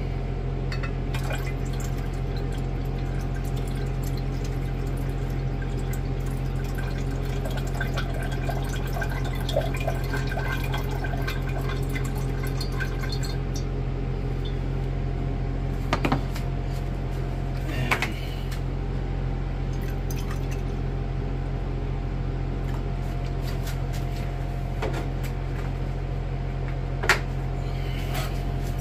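A vacuum pump running with a steady hum while liquid trickles and drips through a filter. There are a few brief knocks about 16, 18 and 27 seconds in.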